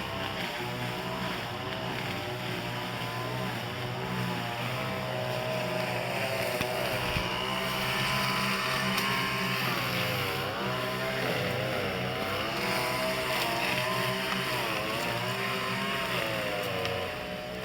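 A motor running steadily, its pitch wavering slowly up and down.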